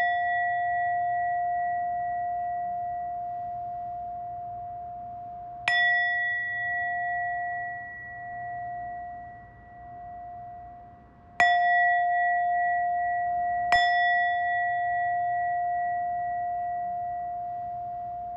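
A bell struck three times, the last two strokes about two seconds apart, with ringing from a stroke just before carrying in at the start. Each stroke rings on in one long, slowly fading tone that wavers in loudness.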